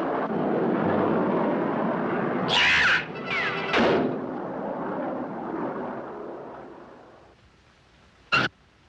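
Cartoon sound effects of a long rumbling roar, like an explosion or crash, with a few sharp hits and a falling whistle about three seconds in, dying away by about seven seconds. A short sharp pitched blip comes near the end.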